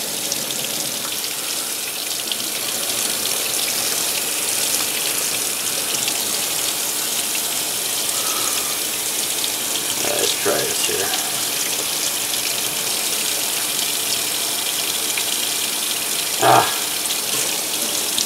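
Kitchen tap running steadily into a stainless-steel sink, the stream splashing over hands and a soaked circuit board as the transfer paper is rubbed off. A few brief vocal sounds come midway, and a short, louder one comes near the end.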